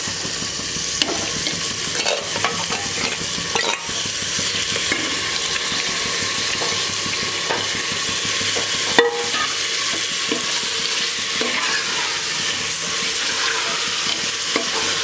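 Marinated chicken sizzling and frying in hot masala in an aluminium pressure cooker as it is spooned in and stirred: a steady frying hiss with occasional short clinks and scrapes of a steel spoon against the pot.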